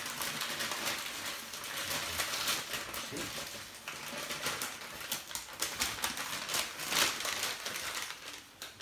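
White gift wrapping paper rustling, crinkling and tearing as a present is unwrapped by hand, with many sharp crackles and a louder crackle about seven seconds in.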